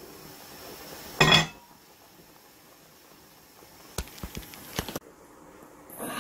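A glass pot lid clinks once against the rim of an enamel pot about a second in, ringing briefly, followed later by a few faint clicks.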